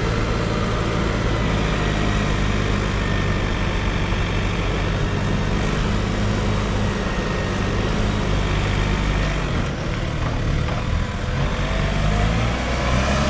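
JCB telehandler's diesel engine running steadily under the work of its hydraulic boom as it lifts a bale and sets it down, with the engine note climbing near the end.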